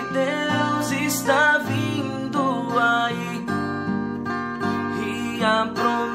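A Portuguese-language Christian hymn sung over strummed acoustic guitar.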